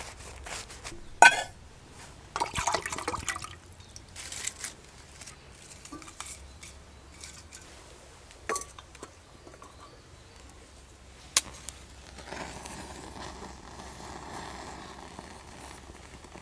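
A stainless steel camping cup clinks sharply several times and is rustled about as it is set up over wood shavings. From about three quarters of the way through comes a steady soft rush as the kindling under the cup catches fire.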